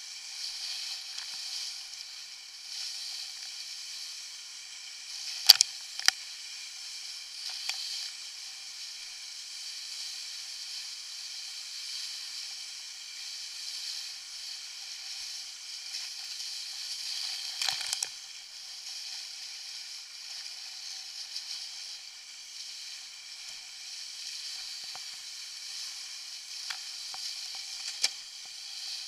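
Steady thin hiss of water and spray rushing along the hull of a Buzz sailing dinghy moving fast through chop, broken by a few sharp knocks, the loudest about five seconds in and another near eighteen seconds.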